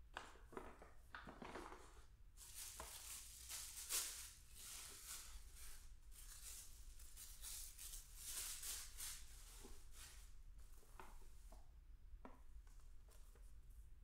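Tissue paper rustling and crinkling as it is pulled out of a paper gift bag and crumpled in the hands, with a few light taps and clicks around it.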